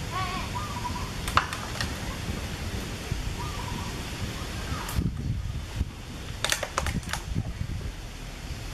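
Outdoor ambience: a steady low rumble with scattered sharp clicks, and a few short high chirps about a second in and again near the middle.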